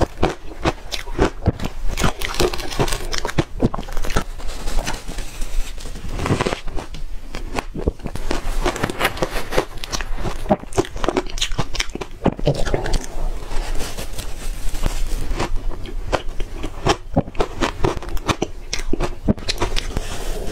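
Someone biting and crunching frozen shaved ice: a dense, continuous run of sharp, crackling crunches.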